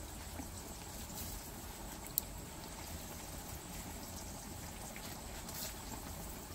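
Cassava-coconut cakes deep-frying in hot oil: a steady sizzle with small crackles, and one sharp click about two seconds in.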